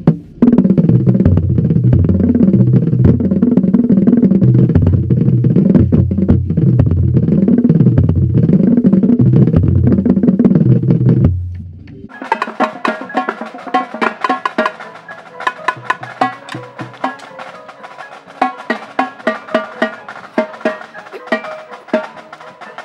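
A line of five tuned marching bass drums plays a melodic split run, the low strokes stepping up and down in pitch. About halfway through they stop and a quieter, rapid pattern of crisp marching snare and tenor drum strokes takes over.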